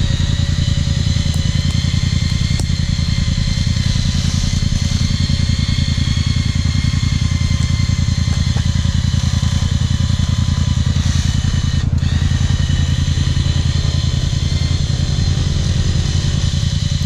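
ATV engine running steadily close by at a constant speed, with a steady high whine over the engine note.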